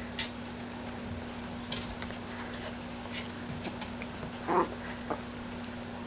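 Young puppies moving about: scattered light clicks, like claws on a hard floor, with one short louder sound about four and a half seconds in, over a faint steady hum.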